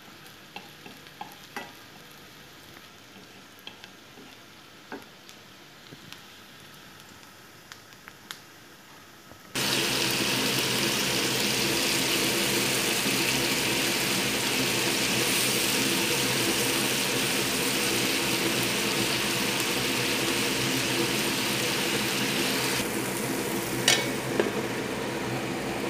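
Chopped onion frying quietly in a non-stick pan, with light taps of a wooden spatula. About ten seconds in, a much louder, steady sizzle with a low hum starts as diced tomatoes fry. Near the end a metal lid clanks onto the pan.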